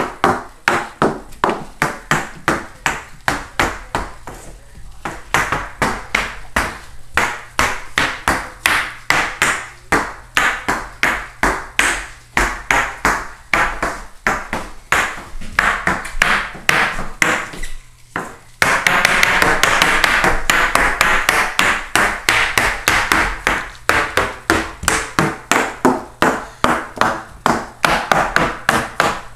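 A toddler walking in hard shoes, the soles clacking on wooden and tile floors at about two to three steps a second. The steps grow louder about two-thirds of the way through.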